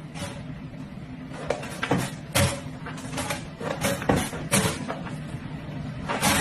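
A series of irregular light knocks and clicks, about ten in a few seconds, at an uneven pace.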